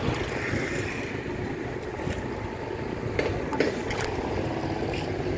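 Open-air market background: a steady low rumble with faint distant voices, and a few sharp clicks or knocks in the second half.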